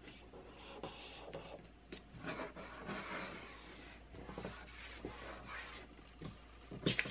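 Paper rustling and rubbing as a hand smooths and handles glued sheets of a printed pattern. A couple of sharp taps near the end.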